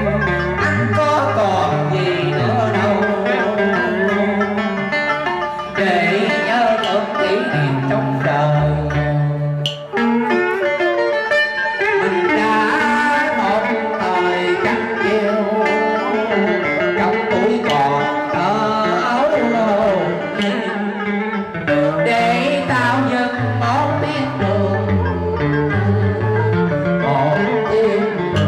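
Vietnamese đờn ca tài tử music: a man sings through a microphone and PA to a plucked-string accompaniment.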